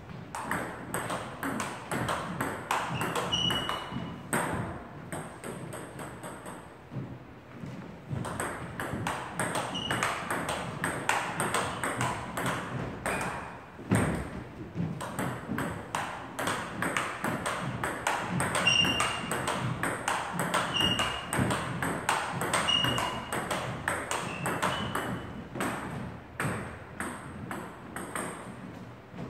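Table tennis rally: the celluloid-type ball clicks quickly off rackets and table in a steady, fast rhythm, with a short break about a quarter of the way in. A few short high squeaks are heard among the hits.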